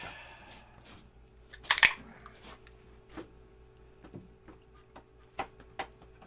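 A drink can cracked open with one short, sharp hiss about two seconds in, followed by a few small clicks and knocks of cans being handled, over a faint steady hum.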